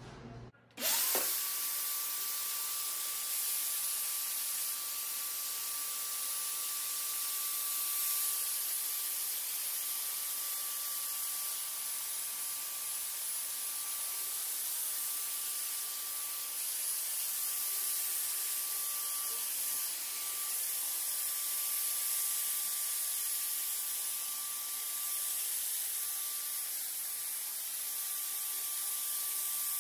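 Handheld EnviroShield electrostatic disinfectant sprayer running: a steady hiss of spraying mist over a steady, high motor whine. It switches on abruptly about a second in.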